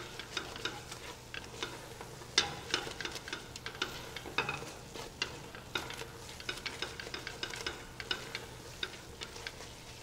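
A spoon stirring thick cocada mixture (grated coconut with passion fruit) in a stainless steel pot on the stove, scraping and knocking against the pot in irregular strokes a few times a second. The mixture is cooking down and starting to dry towards its setting point.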